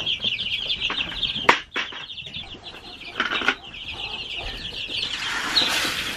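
A brood of chicks peeping in a dense, continuous chorus, with a sharp knock about a second and a half in. Near the end, chick feed poured from a bucket into a plastic feeder adds a steady rush.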